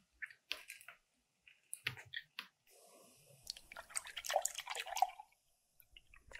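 A few light clicks and taps as a ceramic bowl is handled, then milk pouring from a carton onto granola and strawberries in the bowl: a splashing trickle of about two and a half seconds.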